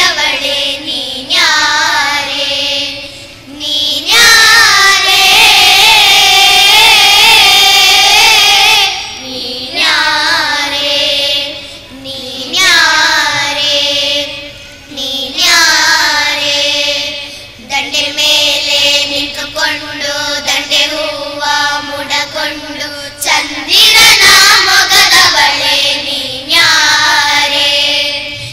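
A group of children singing together in unison into stage microphones, in long sung phrases broken by short pauses.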